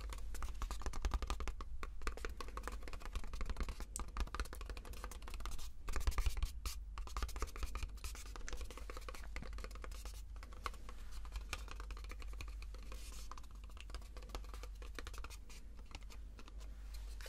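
Close-miked crinkling, scratching and tapping of a small pink cardboard cosmetics carton being opened and unfolded by hand: a dense run of small crackles and clicks. It is busiest and loudest in the first six seconds, then softer.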